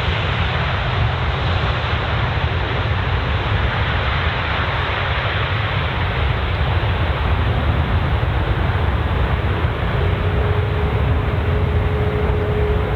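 Boeing 737-800's CFM56-7B jet engines, a steady rumble with strong low end; a faint steady whine joins about ten seconds in.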